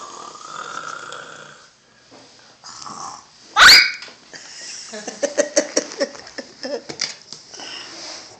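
A young child imitating a dinosaur: a raspy growl at first, then a very loud, shrieking roar about three and a half seconds in, followed by a run of quick, choppy growls.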